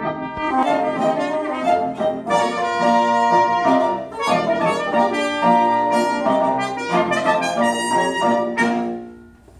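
Live chamber ensemble of clarinet, bassoon, trumpet, violin, cello and piano playing the fast, busy closing bars of a piece, which end about nine seconds in.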